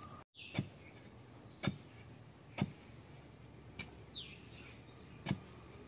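Wooden post being jabbed into the soil to set it upright: five short knocks spaced about a second apart. A faint bird chirp a little after four seconds in.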